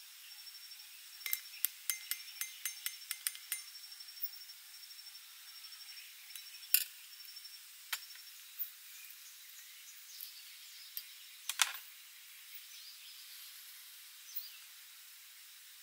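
Light metallic taps and clinks of a copper cocktail shaker and fine-mesh strainer worked over a coupe glass: a quick run of about ten taps in the first few seconds, then a few single sharp clinks. An insect trills steadily behind, stopping about halfway.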